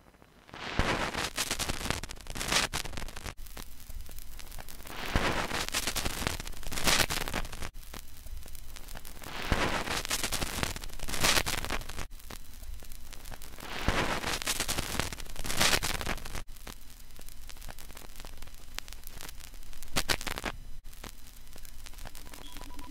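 Static-like noise texture in an electronic music track: waves of hiss and crackle that swell and fade every few seconds, broken by brief cut-outs at a regular interval.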